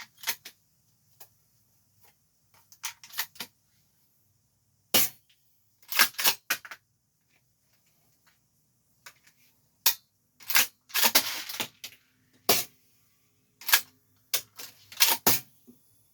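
APS CAM870 airsoft pump-action shotgun being reloaded: a run of sharp clicks and clacks as shells are handled and pushed in and the pump is worked, some in quick clusters, with a longer rattle about ten seconds in.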